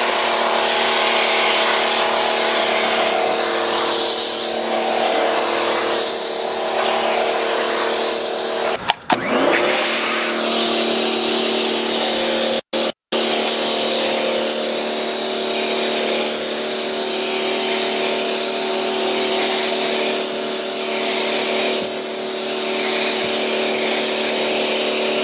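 Pressure washer running steadily and feeding a wheeled undercarriage washer, whose row of upward nozzles sprays water against the underside of a car: a steady motor hum under a strong hiss of spray. The hum dips briefly about nine seconds in and cuts out for an instant twice around thirteen seconds.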